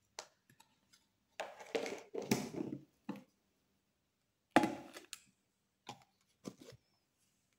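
Kitchen handling noise while spices are measured out: a string of short knocks and scratchy rustles, with the sharpest, loudest knock about halfway through.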